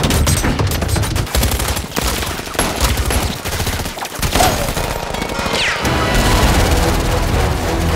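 Film action soundtrack: a sustained barrage of automatic gunfire, with bullets striking the armoured car, and music underneath. A falling whine comes about five seconds in.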